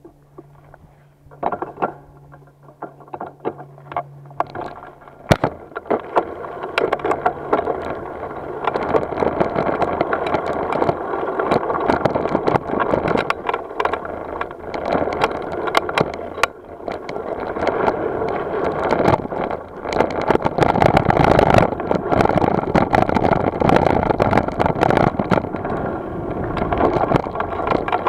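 Mountain bike riding down a dry gravel trail, heard from a camera mounted on the handlebar: tyres crunching over gravel, with many rattles and knocks from the bike. It starts as a few separate clicks and builds to a steady noisy rush about six seconds in as the bike picks up speed.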